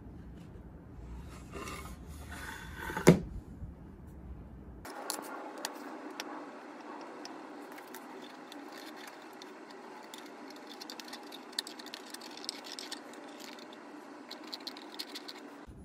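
Quiet hand-work sounds at a workbench: wooden pieces handled and shifted, with light scraping and many small clicks, and one sharp knock about three seconds in.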